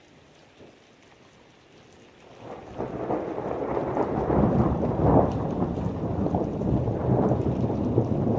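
Rain falling steadily and faintly. About two and a half seconds in, a long rolling thunder rumble swells up, deep and crackling, and keeps rolling loudly.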